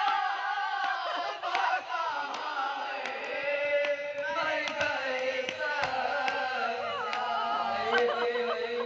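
Women reciting a marsiya, a mourning elegy for Imam Sajjad, in a chanted melody: one lead voice close to the microphone with several others singing along.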